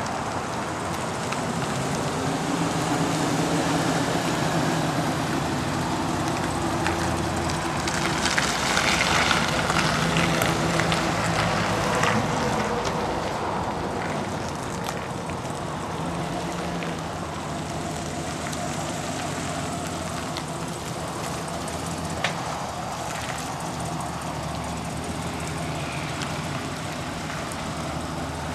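The 2010 Chevrolet Silverado 2500HD's 6.0-litre gasoline V8 running, its note shifting in pitch through the first half and louder with a hiss from about eight to twelve seconds in, then settling to a steadier note. A single sharp click about two-thirds of the way through.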